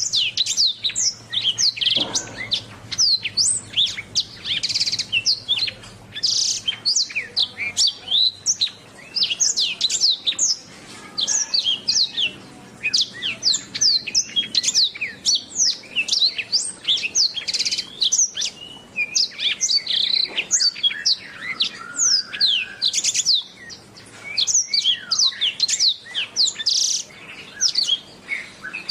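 Domestic canary singing nonstop: a fast, continuous stream of sharp downward-sweeping chirps and rolling trills.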